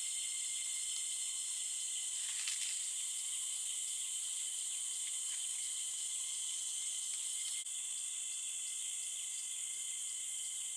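Steady high-pitched chorus of forest insects. After about eight seconds a pulsing call of roughly three beats a second joins in.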